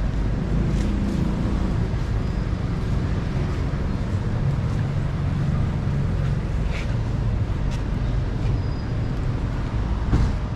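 City street traffic: car engines running in a steady low rumble, with a brief knock near the end.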